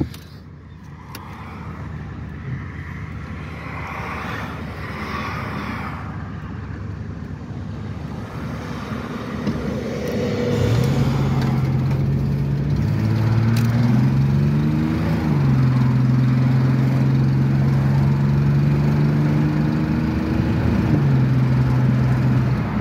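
1994 Chevrolet S-10 Blazer's 4.3-litre V6 pulling hard under acceleration, heard from inside the cab over road and wind noise that grow louder with speed. About ten seconds in, a strong engine note comes up; it climbs in pitch, drops back at each gear change, then holds steady at around 50 mph. The owner says this engine has a miss and runs rich.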